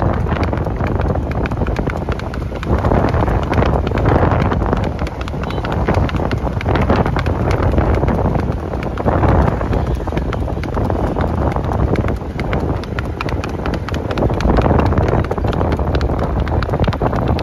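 A horse's hooves clattering quickly and steadily on an asphalt road at a brisk gait, over a steady low rumble.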